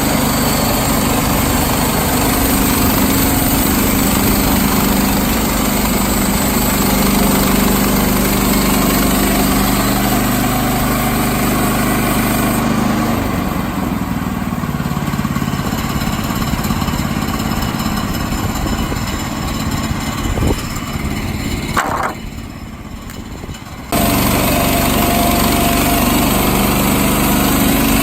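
Small gas engine of a portable bandsaw mill running steadily. A little past halfway the sound thins and then drops to a quieter stretch for about two seconds, with a short rising sweep, before the full engine sound cuts back in abruptly.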